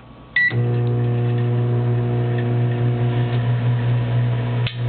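Microwave oven: a single keypad beep, then the oven starts and runs with a loud, steady hum. The hum dips briefly near the end.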